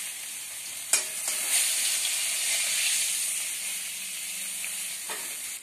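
Fish heads sizzling steadily in hot oil in a steel kadhai as the fried pieces are lifted out with a steel spatula, which clinks sharply against the pan about a second in and again near the end.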